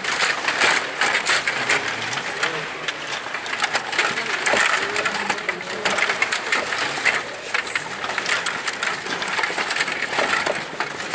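Stiga table hockey game in play: a constant, irregular clatter of clicks and knocks as the control rods are pushed, pulled and spun and the plastic players hit the puck and each other.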